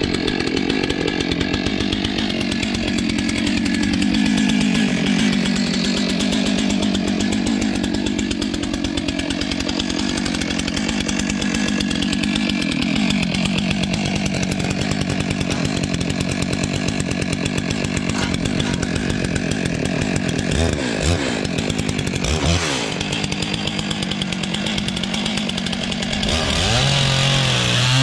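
Stihl MS 661 two-stroke chainsaw with a 1.5 m bar running at high revs and sawing through a bundle of firewood logs. The engine pitch drops under the load of the cut about halfway through and swings briefly a few times later on.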